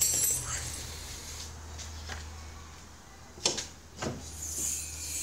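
Handling knocks from a Mercedes W212's bonnet being lifted open: a sharp knock about three and a half seconds in and another about half a second later, over a steady low hum.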